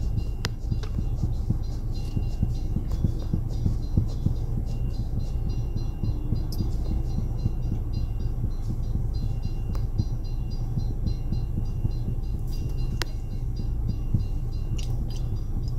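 Low, steady rumble of a stopped car idling, heard from inside the cabin, with a few faint ticks.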